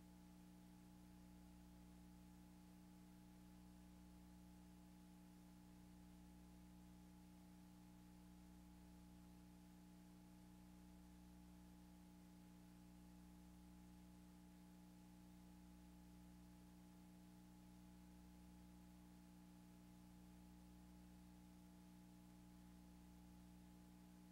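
Near silence: a faint, steady electrical hum of a few low tones over light hiss, from playing back a blank stretch of old video tape.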